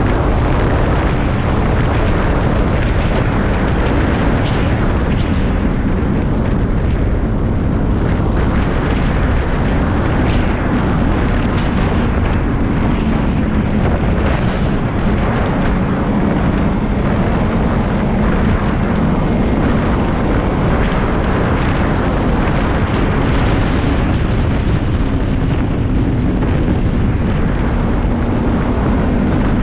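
Snowmobile engine running steadily at trail speed over a heavy low rumble, its pitch drifting up and down a little.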